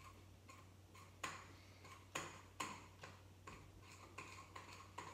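A small spoon clicking against the side of a bowl while stirring thick, sticky glue-and-borax slime: light, fairly even clicks about two to three a second, with a few sharper ones in the middle.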